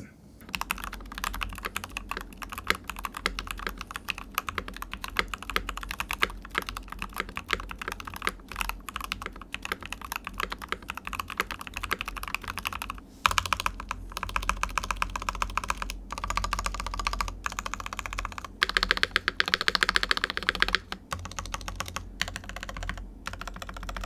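Typing on a Keychron V1, an ABS plastic tray-mount mechanical keyboard fitted with Gateron North Pole linear switches and a silicone case dampener: a steady stream of keystrokes that sounds muted, with the dampener taking away much of the sound. Two stretches of faster, busier typing come past the middle.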